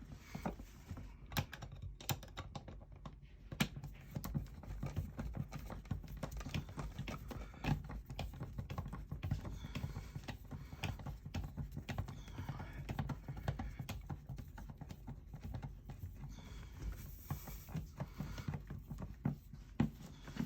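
Screwdriver tightening the mounting screws of an RV wall outlet in a hollow wall, a run of many small irregular clicks and scrapes.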